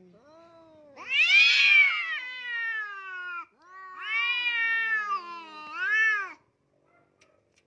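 Cats in a face-off yowling at each other: three long, wavering cries, the last one short.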